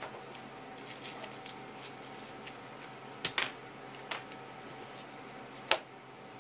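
Handling sounds on a wooden cutting board as a fish fillet is laid out and a knife is taken up: a few sharp clicks and knocks, a double knock past the middle and the loudest single click near the end, over a faint steady hum.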